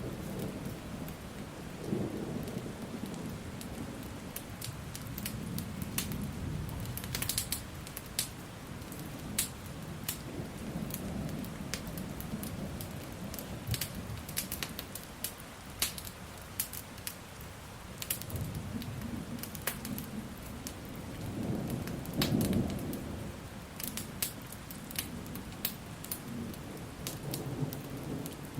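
Steady rain with low thunder rumbling, swelling and fading several times and loudest about two-thirds of the way through, over scattered sharp crackles and pops of a fire.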